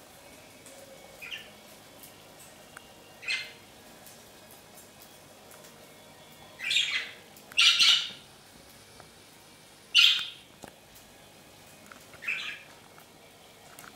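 Budgerigars giving about six short, harsh chirping calls, a second or more apart, with the loudest near the middle.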